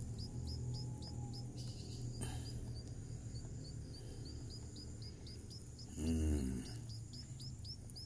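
Baby birds begging, a steady run of short, high, falling chirps at about three a second. A brief low voice-like sound comes about six seconds in.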